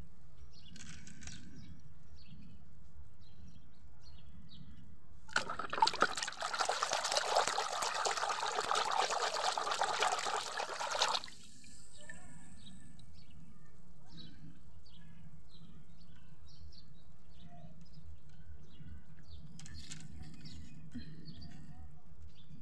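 Water running and splashing into a plastic basin of soapy water for about six seconds, starting about five seconds in and cutting off sharply, over a low steady hum.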